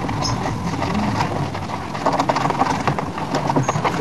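Plastic air-conditioner indoor-unit casing being scrubbed and handled by hand: irregular rubbing and light knocks over a steady low background noise.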